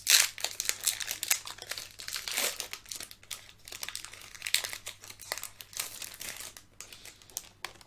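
Foil wrapper of a Pokémon trading-card booster pack crinkling as it is handled in the hands, in a dense run of irregular crackles that stops just before the end.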